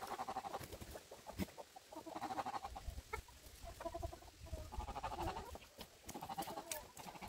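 Chickens clucking: repeated short runs of quick clucks, one after another, with a few light clicks among them.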